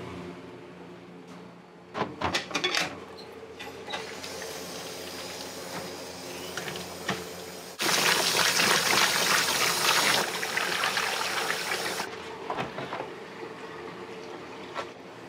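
Kitchen tap water running hard for about four seconds, starting suddenly about eight seconds in, over a steady hum of kitchen machinery. A few sharp clatters of utensils or dishes come earlier.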